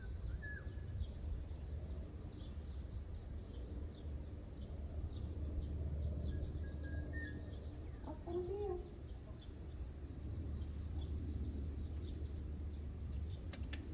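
Outdoor ambience at a fishing pond: a steady low rumble with faint, quick high chirps repeating throughout, and a few brief bird calls.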